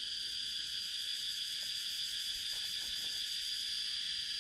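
Steady, high-pitched drone of an insect chorus, unchanging throughout, with a few faint soft ticks.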